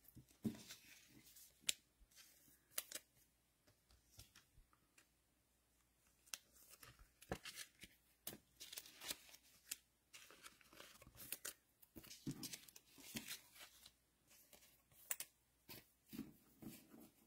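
Faint, irregular crinkling and tearing of trading-card packaging being handled, with scattered small clicks throughout.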